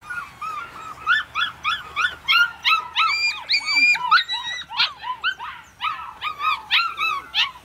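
Five-week-old puppy yipping and whining during play: a run of short, high-pitched yips about three a second, with a few longer drawn-out whines about halfway through.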